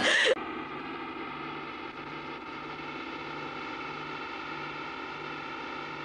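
A brief loud burst cut off abruptly a third of a second in, then the steady hum and hiss of an old VHS camcorder soundtrack, with a faint low pulse repeating a little more than once a second.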